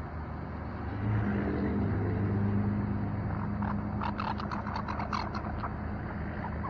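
Steady low engine hum of a vehicle running nearby, louder from about a second in. Near the middle comes a quick run of a dozen or so short, sharp chirps or clicks.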